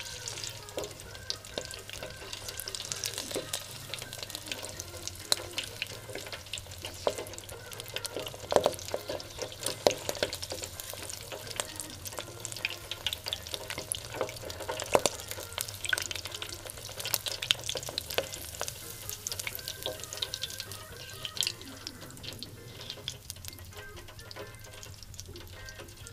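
Shredded-pastry-wrapped prawn deep-frying in the oil of an electric deep fryer: a steady sizzle with dense crackling pops, busiest in the middle and easing off near the end.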